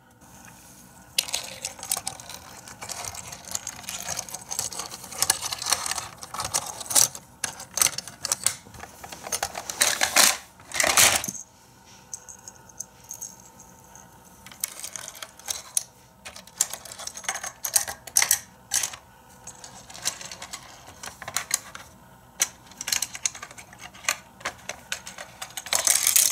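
Hard plastic toy playset being handled: a run of irregular clicks and clatters as its hinged panels are flipped and snapped into place, with a louder rush lasting about a second about ten seconds in.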